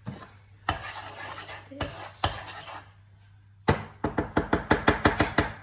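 Scraping and rustling of food being handled, then a knife chopping onion quickly on a cutting board, about six even strokes a second, starting a little past the middle.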